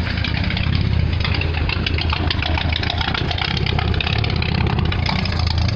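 Car engine idling just after a cold start, heard at its twin exhaust tailpipes: a steady, uneven low exhaust note. The idle is very low, which the owner puts at about 300 RPM.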